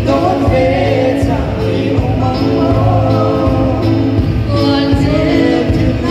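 Live band music with several voices singing together.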